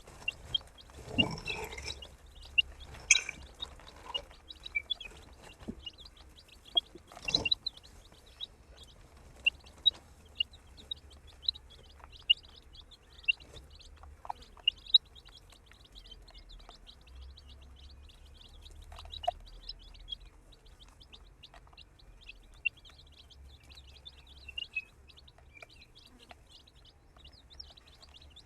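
A group of baby chicks peeping continuously, many short high chirps overlapping. There are a few louder rustling knocks in the first eight seconds or so.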